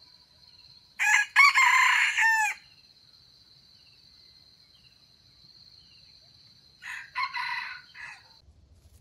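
Red junglefowl rooster crowing: one loud crow about a second in, then a second, quieter crow about seven seconds in.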